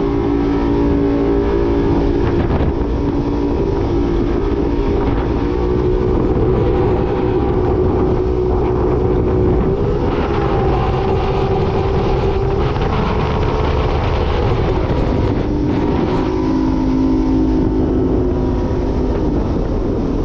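A 15-foot Sport Jet-powered river jet boat's engine running steadily under way, its pitch wavering and shifting slightly as the throttle changes, with some wind on the microphone.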